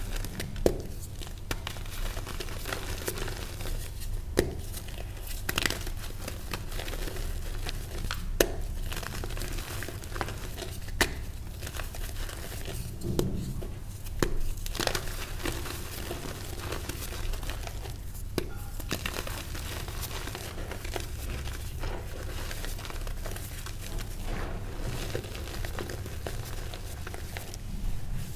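Hands crushing a block of reformed gym chalk, pressed powder crumbling into loose chalk: a steady dry, powdery crunching and rustling, with sharp cracks every few seconds as pieces snap off.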